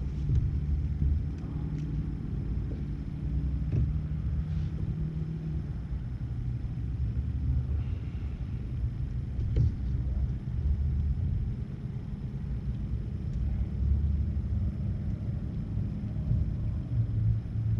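A motor running steadily with a low, even rumble, with a few faint clicks and knocks over it.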